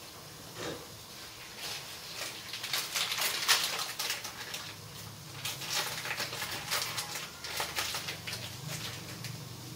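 Mushrooms and onion sautéing in fish sauce in a pot, sizzling with irregular crackles that come in clusters, busiest in the middle.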